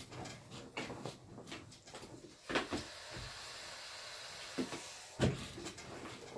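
Handling a steam-generator iron at an ironing board: three knocks as the iron is set down and picked up, the last the loudest, over a soft hiss.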